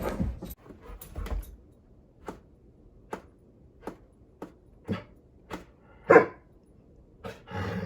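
A pet dog barks once, short and sharp, about six seconds in. Before it come a series of light ticks and taps.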